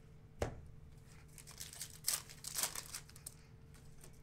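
A trading-card pack wrapper being torn open and crinkled, in a few short crackling bursts about two to three seconds in. A single sharp tap comes about half a second in.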